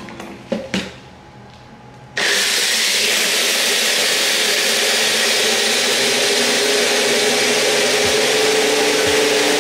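Two clicks as the cup of a personal blender is seated on its motor base, then about two seconds in the blender's motor starts and runs steadily at full speed, blending ice with rum, pineapple juice and coconut cream.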